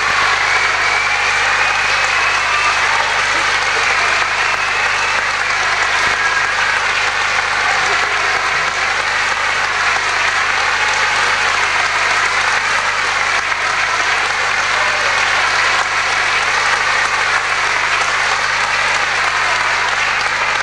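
Theatre audience applauding loudly and steadily, with a low electrical hum underneath.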